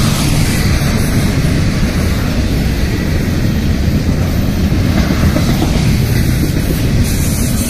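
Double-stack intermodal freight train rolling past at close range: a steady loud noise of steel wheels on the rails and the well cars going by.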